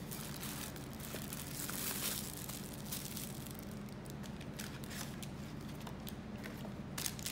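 Cardboard box and plastic bag rustling and crinkling as a squeeze slushy cup is unpacked by hand, with irregular sharp crackles.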